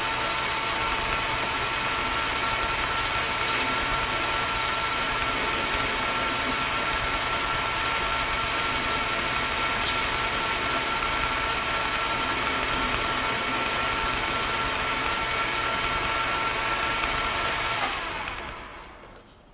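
Metal lathe running steadily with a motor and gear whine, then switched off about 18 seconds in and spinning down quickly.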